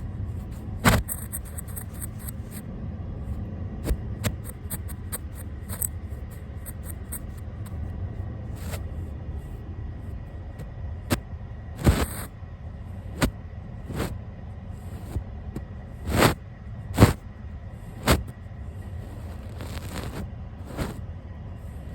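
A brush sweeping over the camera lens and microphone, making a continuous low rumbling brush noise broken by a dozen or so sharp clicks and taps as the brush knocks the camera.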